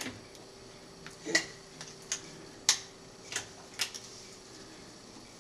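Irregular sharp clicks and taps of plastic being handled over about four seconds as a rubber balloon is stretched over the neck of a plastic soda bottle, with a faint steady hum underneath.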